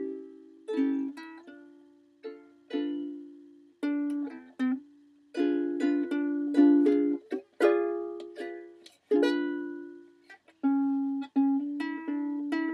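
Ukulele playing chords without singing, each chord struck and left to ring out and fade before the next.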